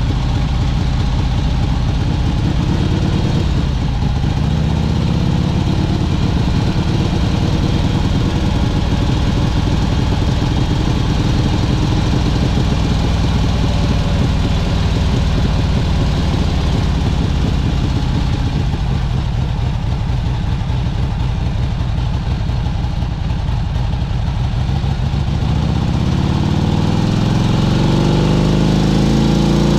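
1971 Harley-Davidson XLH Sportster's 883 cc Ironhead V-twin running under way, fitted with a modern CV carburetor. Its note rises as the bike accelerates a few seconds in, and climbs again steeply near the end. The owner believes an earlier owner raised its compression and fitted more aggressive cams.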